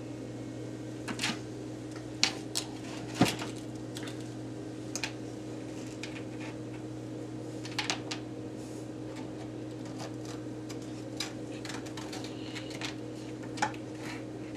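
Pots and pans clattering and knocking as a baby plays with them, in scattered irregular knocks, the loudest about three seconds in, over a steady low hum.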